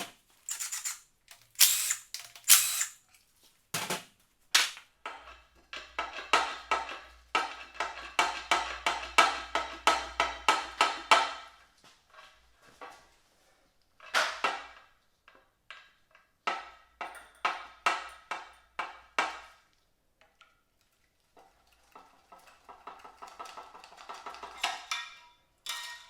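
A ratchet clicking in quick, even runs as screws are backed out on the engine, with a few clanks of metal tools and parts at the start.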